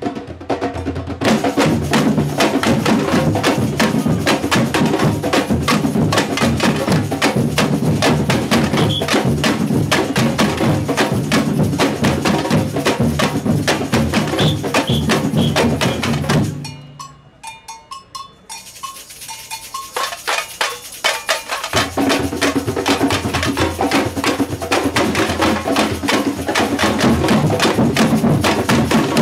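Samba batucada percussion group playing a fast, dense rhythm: tamborims struck with sticks over deeper drums. About 17 seconds in the band cuts to a break of a few light strokes, and the full group comes back in about five seconds later.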